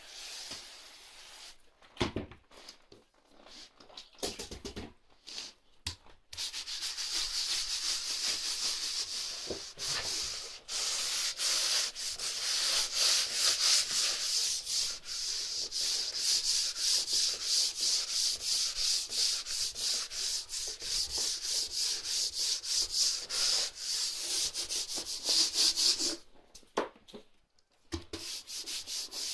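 Fast, even back-and-forth scrubbing strokes rubbing over a wet wooden floor, starting after a few scattered knocks and running for about twenty seconds before a brief pause near the end.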